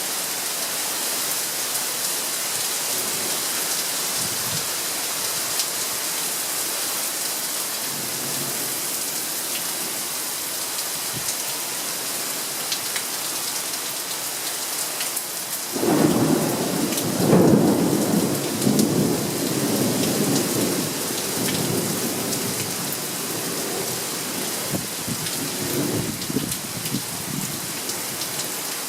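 Steady heavy rain hissing on surfaces, with a thunderclap breaking in suddenly about halfway through and rolling on in waves of rumbling for around ten seconds before fading back under the rain.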